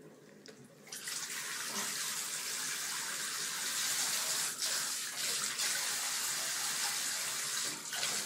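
Handheld shower head spraying water into a bathtub. The steady hiss starts about a second in and runs on evenly.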